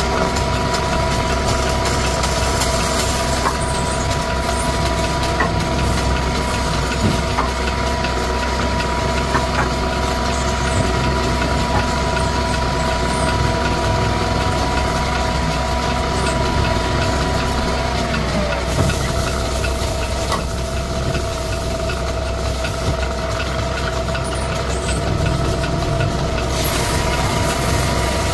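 Electric wood lathe running steadily as it spins a charpai leg being coloured with lac sticks: a constant motor hum with a few light ticks.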